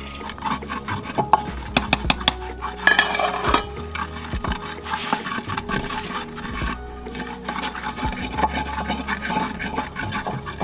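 Wooden pestle (tapoli) grinding wet chili pepper in a ridged earthenware grinding bowl (asanka): a quick run of scrapes and clicks of wood rubbing on clay.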